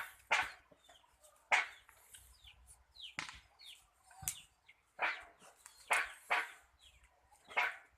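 A dog barking, about eight short barks at irregular intervals, with a sharp click about four seconds in.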